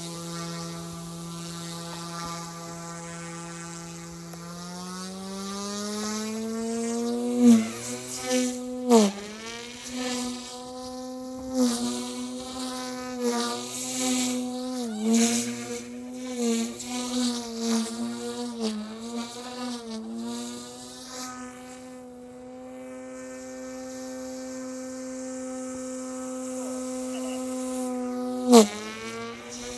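OMP M2 V2 electric RC helicopter in flight: a buzzing whine from its motor and rotors that steps up in pitch about five seconds in. The whine then dips and recovers again and again, with several sharp loud whooshes, before holding steady for the last part, with one more sharp whoosh near the end.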